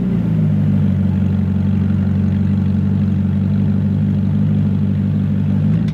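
Ferrari California V8 through an aftermarket Fi Exhaust system, idling steadily with a deep, even exhaust pulse.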